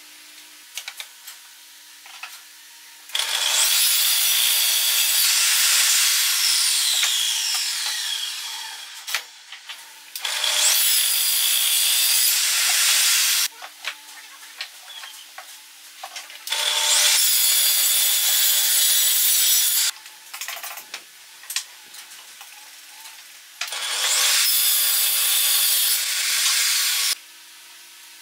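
Table saw cutting wood in four separate runs of three to four seconds each. Each run starts and cuts off abruptly, with quieter clicks and knocks of wood and fence handling between them.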